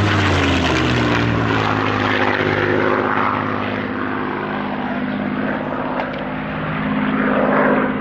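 Supermarine Spitfire's piston engine and propeller as the fighter flies past, the engine note dropping in pitch early on, then growing louder again near the end as it comes round.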